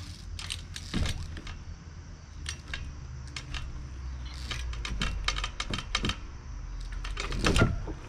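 Irregular clicks, taps and rattles of a 24-inch trials bike being ridden and hopped along a wooden deck, thickest in the middle of the stretch. Near the end comes a short, louder sound that falls in pitch.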